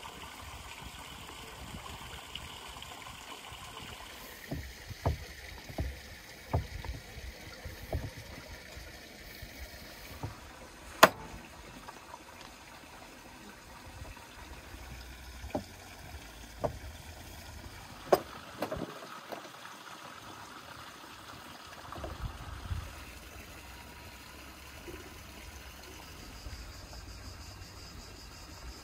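Scattered taps and knocks from a rolling pin, a board and a fluted metal pie tin handled on a wooden table as pie dough is rolled out and pressed into the tin. The sharpest knock comes about eleven seconds in, over a steady low outdoor background.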